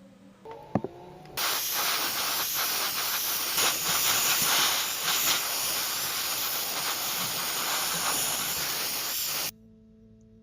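A loud, steady hiss, like air or spray jetting from a nozzle, switched on suddenly with a click just before it and cut off abruptly about eight seconds later.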